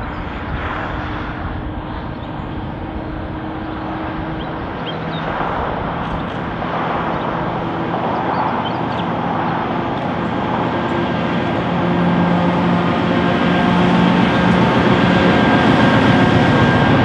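Two diesel-electric locomotives hauling a coal train pass close by, their engines running with a steady low note, followed by the rumble of the coal hopper wagons on the rails. The sound grows steadily louder through the passage.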